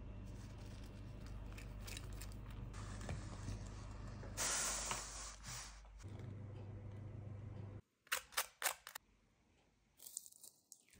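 Golden crust of freshly baked focaccia crackling as it is torn apart by hand: a few sharp crunches about eight seconds in. Before that, a low steady hum with light handling clicks and a brief hiss about four seconds in.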